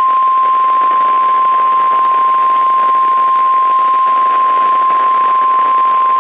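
NOAA Weather Radio's 1050 Hz warning alarm tone, one loud unbroken beep held at a single pitch, heard through a weather radio receiver with a steady hiss of static behind it. Here it sounds as the weekly test of the alarm that switches on special alert receivers to warn of a hazard.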